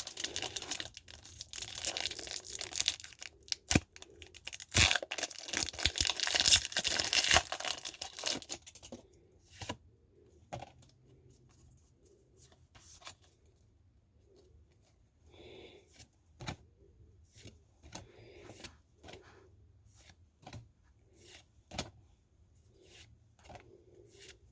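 A foil Pokémon TCG booster pack is torn open and crinkled for about nine seconds. After that come soft separate clicks and snaps, about one a second, as the cards are handled one by one.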